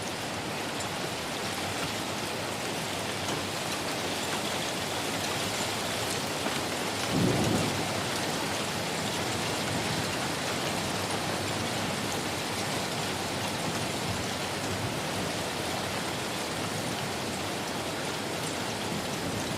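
Heavy rain falling, a steady hiss, with a brief low rumble about seven seconds in.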